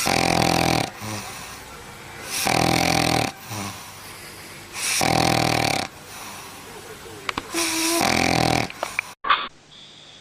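Sleeping dog snoring: four loud snores, about two and a half seconds apart, with quieter breathing between them. Near the end comes a short sharp sound, and then the snoring stops.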